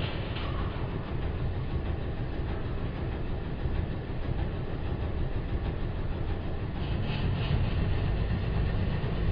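Truck engine running with the vehicle stopped or creeping: a steady low rumble, a little louder in the last couple of seconds.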